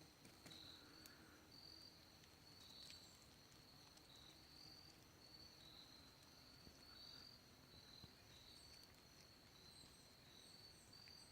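Near silence with faint insect chirping: short high chirps repeating at an even pace of roughly two a second.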